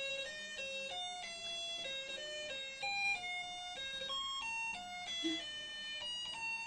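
Snap Circuits music circuit playing a beeping electronic tune, one plain note after another in quick steps. It starts suddenly as the slide switch turns the circuit on, and it plays only for a short time before stopping.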